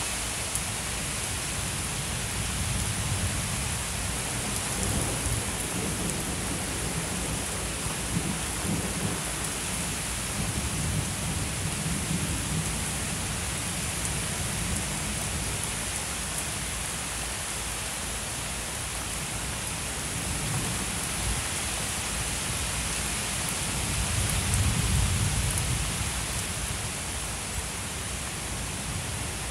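Thunderstorm: steady rain falling, with low rolls of thunder rumbling underneath. A louder roll swells up near the end.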